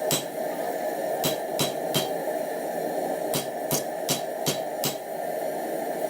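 Hammer striking steel on an anvil, about nine ringing blows in groups of three or four with short pauses between, over a steady rushing noise.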